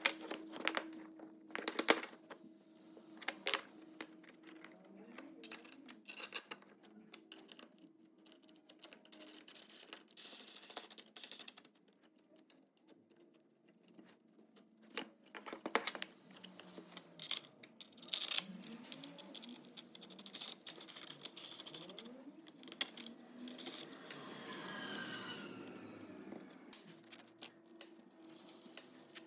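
Small hard tools being handled: irregular clicks, taps and light knocks, over a faint steady hum. A short scrape comes a little before the end.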